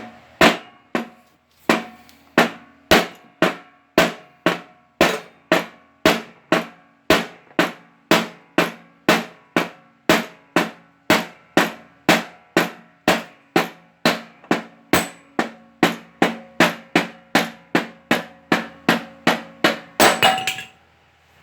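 Hammer blows driving the spindle shaft out of a Craftsman LT3000 mower deck spindle, a steady run of about two to three strikes a second with a metallic ring after each. The blows stop near the end.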